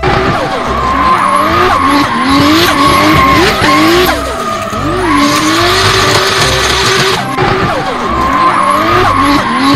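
Race car engine revving, its pitch rising and falling again and again, with tyres squealing and skidding.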